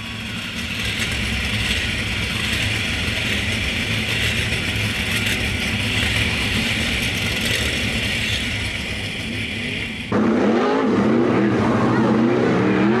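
Field of 410 sprint cars running at low speed as a pack, many methanol-burning V8 engines blending into a steady rumble. About ten seconds in the sound cuts abruptly to a clearer chorus of engines revving up and down.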